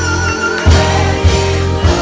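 Live church gospel music with a steady bass line and a held, wavering note that stops about half a second in. Three sharp drum hits follow, about 0.6 seconds apart.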